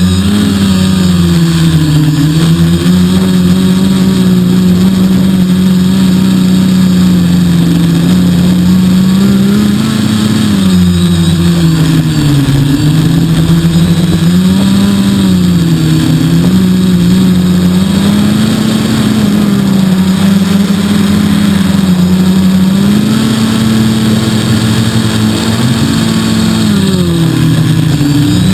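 3DR quadcopter's electric motors and propellers humming loudly, the pitch wavering up and down every few seconds as the motor speeds change to hold the craft in strong wind.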